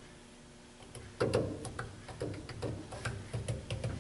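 Light metal clicks and knocks, several a second and irregular, starting about a second in: an aluminium cylinder head being pressed and rocked on the steel fixture of a head-resurfacing machine while it is checked for rocking.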